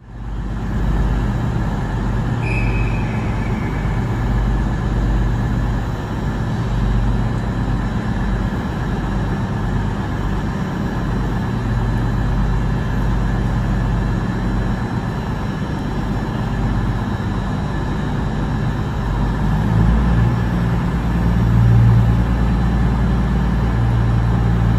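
CrossCountry Class 221 Super Voyager diesel multiple unit idling at the platform, its underfloor diesel engines giving a steady low hum that grows a little louder near the end.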